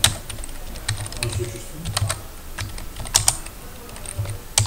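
Typing on a computer keyboard: irregular keystroke clicks in short runs, a few louder than the rest.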